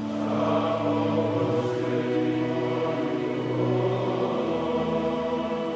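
Church choir singing the responsorial psalm in long held notes, stopping suddenly at the end.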